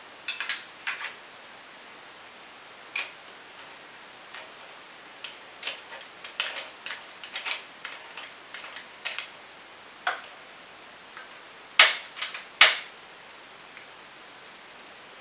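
Aluminium moka pot being handled and assembled: scattered light metallic clicks, taps and scrapes as the top chamber is fitted and screwed onto the base. Near the end come three sharper, louder clicks in quick succession.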